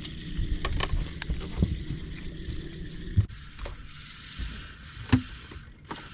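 Sounds of a fishing boat: a low motor hum that cuts off suddenly about three seconds in, with scattered knocks and clicks of gear against the hull.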